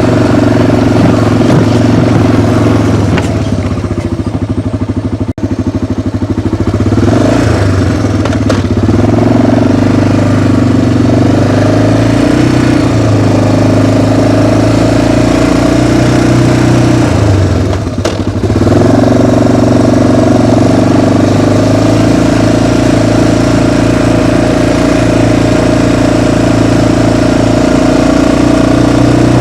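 Small vehicle engine running steadily under way, its note easing off briefly twice, about four seconds in and again near eighteen seconds.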